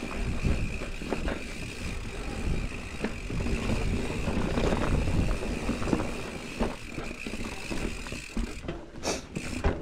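Mountain bike riding down a dirt trail, heard from on the bike: the tyres run over dirt and roots with a steady low rumble, while the chain and frame clatter in irregular clicks and knocks over the bumps, a few sharper knocks near the end.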